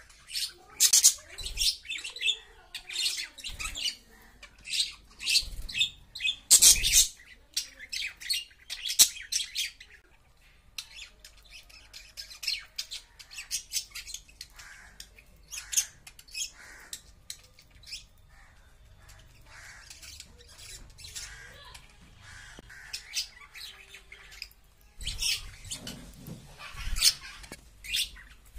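Pet budgerigars chirping and squawking in quick, sharp bursts, busiest in the first ten seconds and again near the end, with a few soft thumps.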